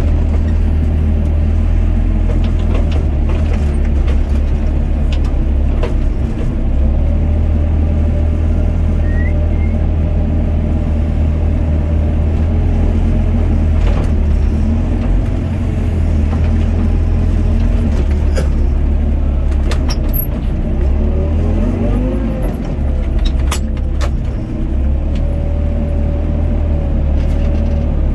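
Doosan DX55 mini excavator at work, heard from the cab: a steady diesel engine drone with a whine that glides up and down as the boom and bucket move, most clearly about two thirds of the way through. A few sharp knocks are heard along the way.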